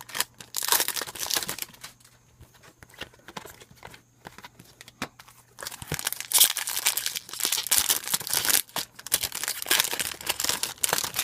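Foil trading-card pack wrappers being torn open and crinkled, a short spell of crackling near the start, then quieter scattered ticks, then steady crinkling and tearing over the last five seconds.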